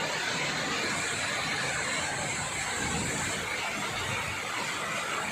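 Heavy, cloudburst-like downpour of rain, a steady dense hiss.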